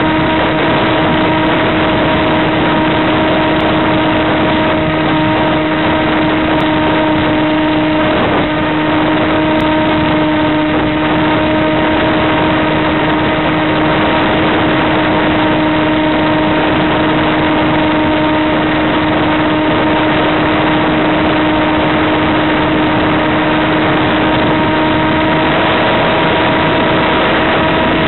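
Electric motor and propeller of an FPV model plane running steadily under power, a constant buzzing hum over a rushing wind noise on the onboard microphone.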